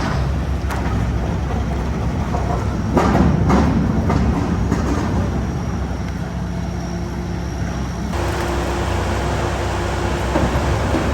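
Heavy demolition machinery running with a steady low engine rumble, with a few knocks about three seconds in and a steadier engine tone joining about eight seconds in.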